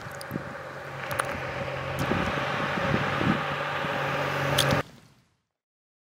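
BMW touring motorcycle approaching, its engine growing steadily louder as it nears, then cutting off about five seconds in.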